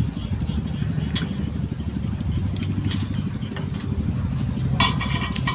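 A steady low rumble, with scattered faint clicks and crackles of duck eggshells being cracked and peeled by hand.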